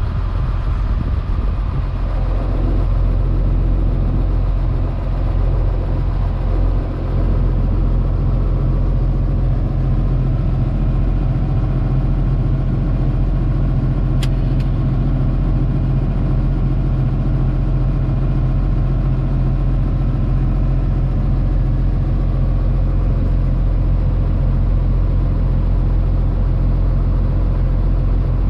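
Combine harvester running steadily while cutting soybeans: an even, low engine drone, with one brief sharp click about halfway through.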